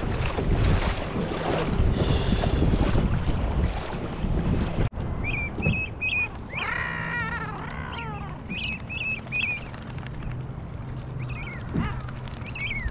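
Water splashing at a kayak's bow, with wind on the microphone, for about five seconds. After a sudden cut, a flock of seabirds rafted on the water calls: repeated short high chirps and one longer call that falls in pitch.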